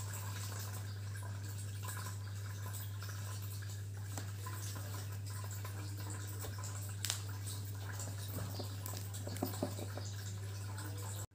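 Steady low hum and hiss of room noise, with one sharp click about seven seconds in. Near the end come a few light taps as the glass nail polish bottle is handled and its cap gripped.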